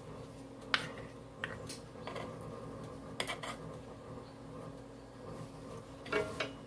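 Wooden spatula spreading a soft onion mixture onto crescent dough on a plate: scattered light taps and scrapes, a quick cluster about three seconds in, and a louder clatter near the end, over a steady low hum.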